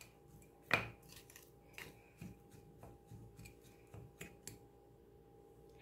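Wooden spatula stirring cooked rice in a bowl: faint, irregular taps and scrapes of the spatula against the bowl, the loudest about three-quarters of a second in.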